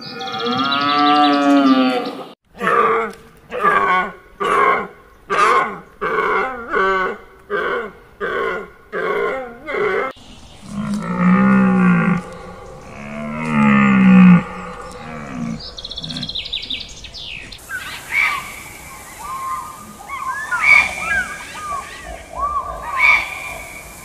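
Deer calling: a red deer stag gives one long roar, then a run of about a dozen short roars, roughly one a second. Around the middle come two low grunts, and in the last third fainter, higher calls that rise and fall in pitch.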